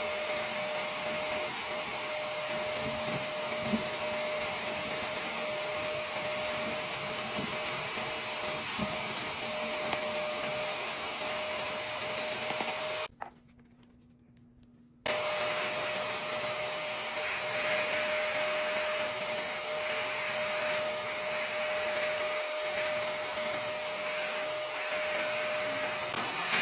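Shark MessMaster wet/dry vacuum running steadily with a whine, sucking up wet, chunky potting soil. It cuts out for about two seconds near the middle, then runs again.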